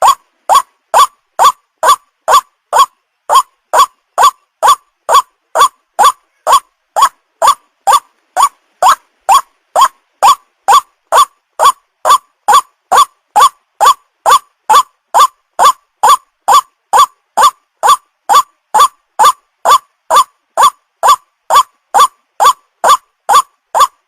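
White-breasted waterhen (ruak-ruak) call, a short upward-sliding note repeated steadily about twice a second, loud and unbroken, played as a lure call for trapping.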